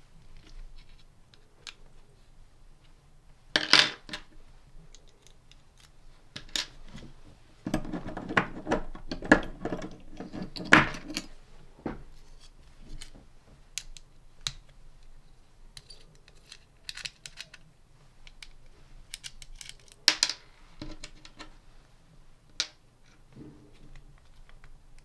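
Clicks and clatters of hand-disassembly on a 3D printer's plastic extruder housing: an Allen key working in the screws, small screws set down, and plastic parts knocking together. The loudest clatter comes about 4 seconds in, a dense run of them comes around 8 to 11 seconds, and there is one more sharp click near 20 seconds.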